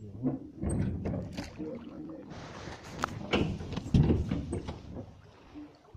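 Irregular knocks and thuds on a small metal boat's deck and hull, with a brief hissing rush about two seconds in.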